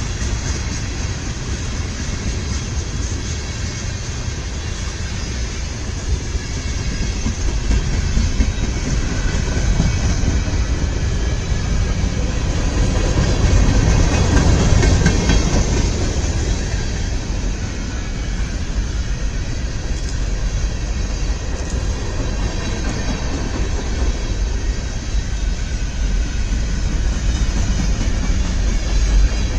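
Freight train cars rolling past close by: steel wheels running over the rails in a steady rumble that swells about halfway through. The cars passing are a string of tank cars followed by gondolas and boxcars.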